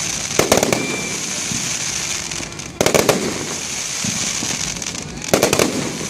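Fireworks going off: three quick clusters of sharp bangs, about two and a half seconds apart, over a steady hiss.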